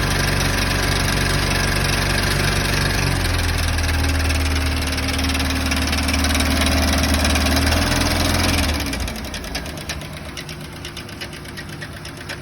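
OMC 4.3 L V6 marine engine running. Its pitch shifts up about three seconds in, then it drops back to a quieter run with a fast, even ticking about nine seconds in.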